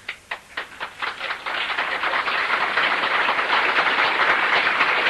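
Audience applause: a few scattered claps that build within about a second and a half into steady, dense clapping.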